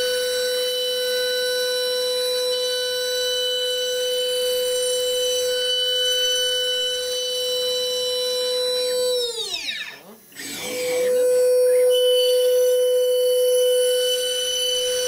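Datron CNC high-speed milling spindle whining at a steady high pitch. About nine seconds in it winds down in a falling whine to a stop, then spins back up within about two seconds to the same steady whine. A different cutter is in the spindle afterwards, typical of an automatic tool change.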